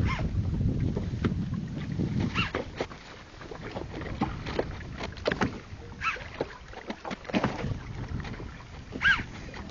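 Small boat at sea, with water slapping and knocking against the hull and wind on the microphone. Four short high squeaks come a few seconds apart.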